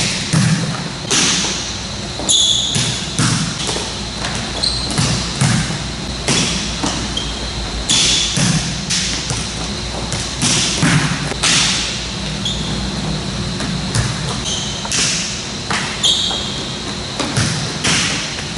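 Volleyballs being hit and passed off a player's forearms, a sharp slap or thud about every second, with balls bouncing on the court and short squeaks of court shoes on the floor.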